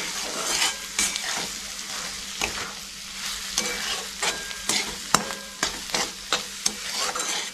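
Chopped onions and spice powders sizzling in hot oil in a metal kadhai, stirred with a steel spatula that scrapes and clinks against the pan at irregular intervals over a steady frying hiss. The sound is the sautéing of turmeric and red chilli powder into softened onions.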